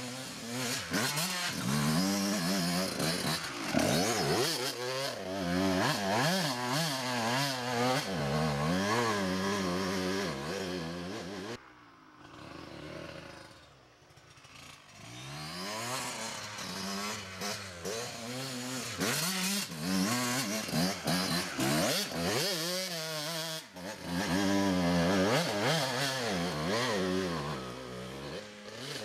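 A 2003 Kawasaki KX125 two-stroke, single-cylinder dirt bike engine revs hard under load up a rough hill climb. Its pitch swings up and down repeatedly as the throttle is worked over the bumps. The sound drops away abruptly about twelve seconds in, comes back a few seconds later, and breaks off briefly again near the end before returning loud.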